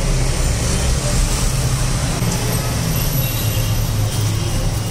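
Steady low rumble of background street noise, like engines of passing traffic.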